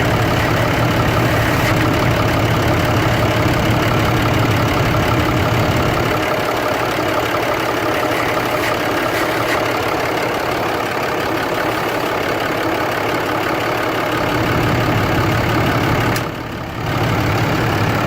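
6.7-litre Cummins inline-six turbo diesel in a 2012 Ram 3500, idling steadily. The deep low rumble lessens about a third of the way through, and the sound dips briefly near the end.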